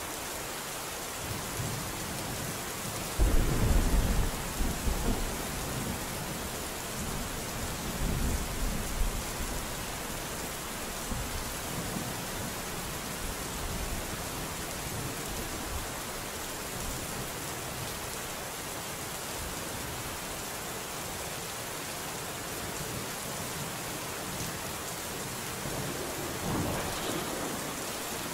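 Steady rain falling, with thunder rumbling low a few seconds in, again about eight seconds in, and more faintly near the end.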